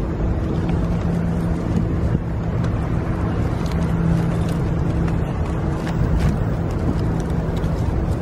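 Street traffic: a vehicle engine running with a steady low hum over a continuous traffic rumble, with a few faint light clicks.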